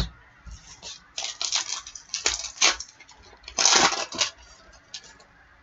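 Trading card pack being opened by hand: the wrapper crinkling and tearing, with cards handled, in a run of short crackling bursts, loudest about three and a half to four seconds in.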